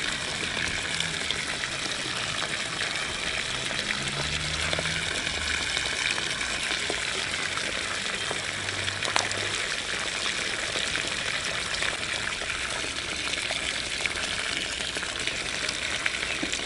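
A steady rushing hiss, like running water, holding at an even level throughout, with one faint click about nine seconds in.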